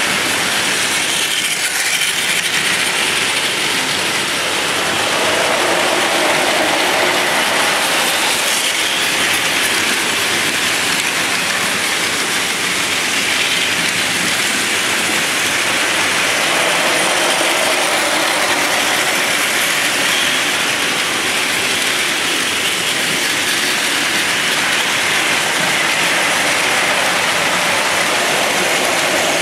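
Several battery-powered Plarail toy Shinkansen trains running together on plastic track: a dense, steady mechanical whir of their small motors and gears, swelling and easing a little as trains pass close.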